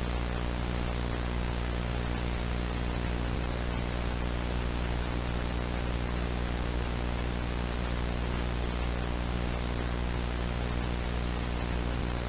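Steady static hiss with a low mains hum underneath, the noise of a VHS tape's audio track, unchanging throughout.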